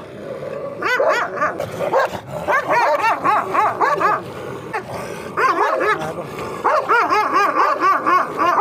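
A large guardian-breed dog barking over and over, in quick runs of several barks with short pauses between them.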